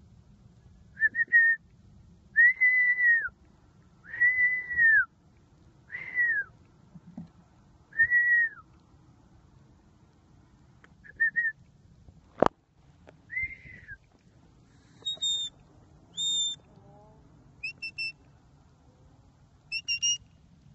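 Herding whistles to a working sheepdog: a series of long arched notes that rise and then drop at the end. From about fifteen seconds in, the notes are shorter and higher. A single sharp click comes about halfway through.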